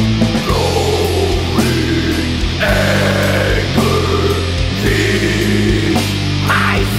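Instrumental heavy metal passage: distorted guitars over bass and drums, with a high melodic line sliding down in pitch several times.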